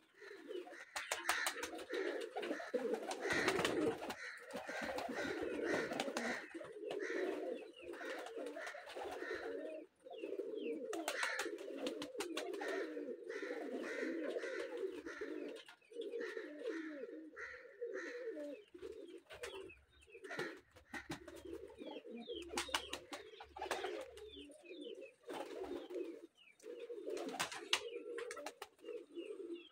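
A flock of domestic pigeons cooing continuously, many birds overlapping, with short bursts of clattering now and then.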